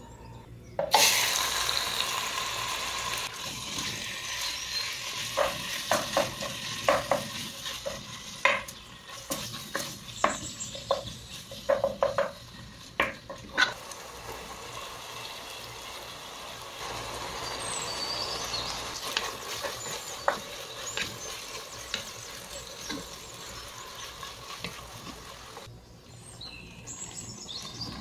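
Minced meat frying in hot oil in a stone-coated nonstick pot: a loud sizzle breaks out suddenly about a second in and keeps going while the meat is stirred. There is a run of sharp knocks and scrapes of the spatula against the pot in the middle.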